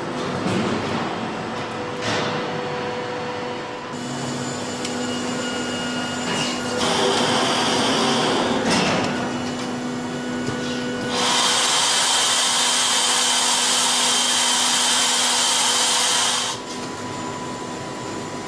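Factory machinery at a carbon-fibre moulding press running with a steady hum and lighter hissing, with two brief swishes. From about 11 to 16 seconds a loud, even air hiss rises over it, then stops suddenly.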